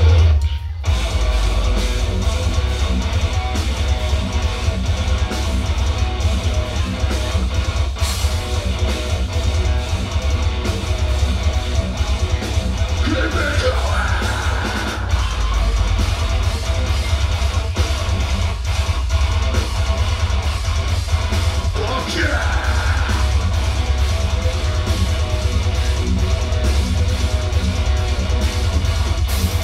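Progressive metalcore band playing live: heavy distorted electric guitars and bass over fast, dense drumming, loud and continuous after a brief drop about half a second in.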